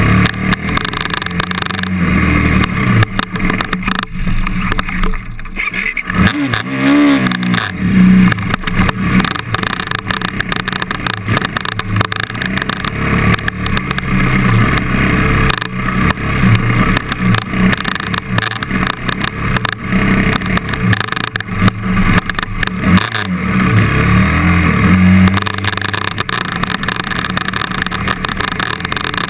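KTM trail bike engine being ridden off-road, heard from the bike itself, its revs rising and falling with the throttle. It eases off briefly about five seconds in, then picks up again.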